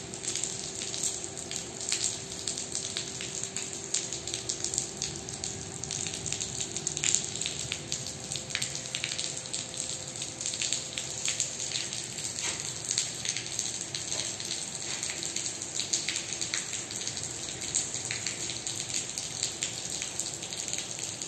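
Rainwater leaking through the concrete ceiling and splashing onto a flooded floor: a steady watery rush broken by many sharp drips and splatters. A faint steady hum runs underneath and fades out about halfway through.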